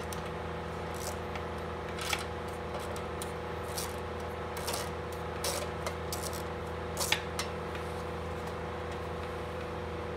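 Small metal bolts clicking and ticking as they are unscrewed by hand and taken out of the Predator 212cc engine's case. The clicks are scattered and irregular, over a steady low hum.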